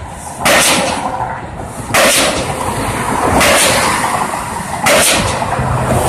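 Diesel pile-driving hammer striking a pile at a steady pace of about one blow every second and a half, four sharp bangs with a ringing tail after each.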